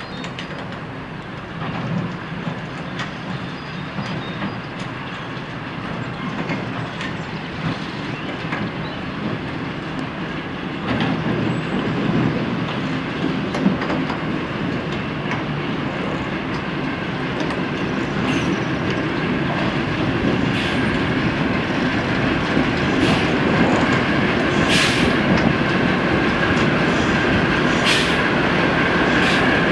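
Class 08 diesel shunter D3586 (08471), its English Electric six-cylinder diesel engine running steadily and getting louder as the locomotive draws near. In the second half, sharp clicks of the wheels over rail joints, with a faint wheel squeal near the end.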